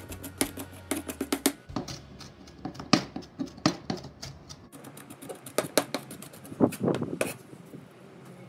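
Chef's knife chopping on a plastic cutting board, mincing sliced green onion: quick, irregular taps of the blade on the board, a dense run in the first second and a half, then shorter runs.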